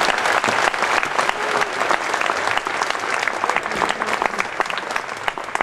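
Audience applauding, thinning toward the end into scattered individual claps.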